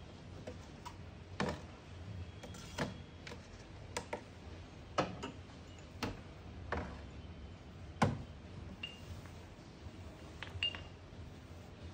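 Ceramic espresso cups and a small digital scale being set down and arranged on an espresso machine's drip tray grate: a string of separate clinks and knocks, the loudest about eight seconds in. Two short high pings follow near the end.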